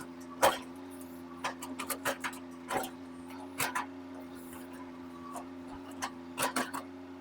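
Small diesel-powered mini excavator running at a steady note, with a scatter of sharp, irregular clicks and knocks over it, the loudest about half a second in.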